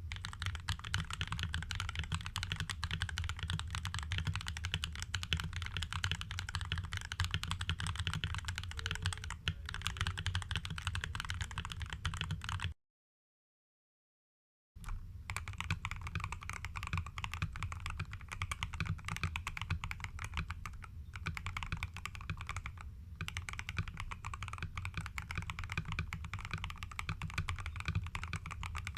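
Fast, continuous typing on a mechanical keyboard, first with its stock OEM-profile keycaps. The typing breaks off at a silent cut a little under halfway through, then resumes with XDA-profile keycaps.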